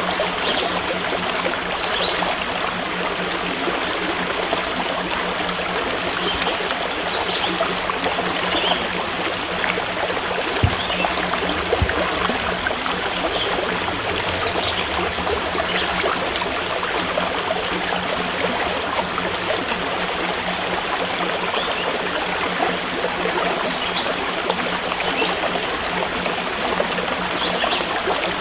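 Steady rushing and trickling of a flowing stream, with two brief knocks about ten seconds in.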